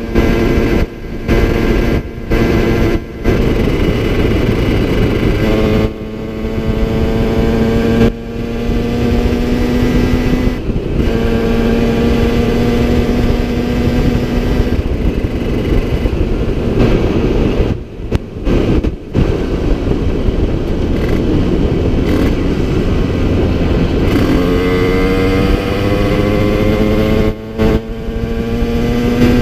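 Yamaha TZR50 two-stroke single, bored out to 70cc with an Airsal kit, Polini CP21 carburettor and Technigas exhaust, pulling hard under way. Its note climbs in pitch on several long pulls, the steepest near the end, with short breaks in between. The owner says the top end was worn and the engine down on power at this time.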